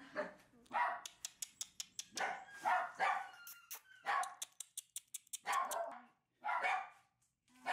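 Shiba Inu puppy barking in a string of short barks, roughly one every half second to a second, with a quick run of sharp clicks in the first half.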